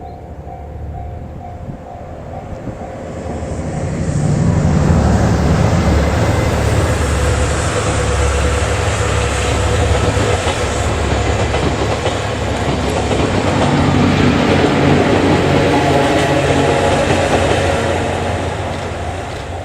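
Level-crossing warning bell ringing, then a locomotive-hauled passenger train (DD51 diesel locomotive, 12 series coaches and EF64 electric locomotive) passes close by. A heavy low rumble builds from about three seconds in, followed by wheels clattering over rail joints. The train sound fades near the end as the bell is heard again.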